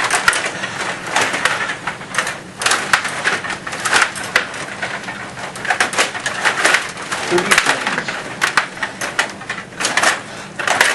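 Stiga table hockey game in fast play: a rapid, irregular clatter of clicks and knocks from the rods, plastic players and puck striking one another and the boards.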